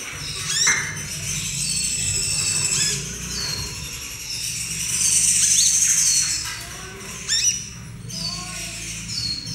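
Young purple-throated sunbird (kolibri ninja) singing in a cage: high, thin twittering phrases with quick rising sweeps, the loudest about five seconds in. This is the unfinished song of a young bird still learning. A low steady hum runs underneath.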